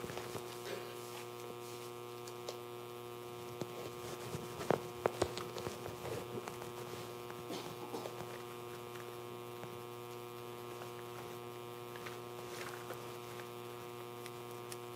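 Steady electrical mains hum with intermittent rustling and light knocks of paper sheets being shuffled and turned over on a wooden lectern.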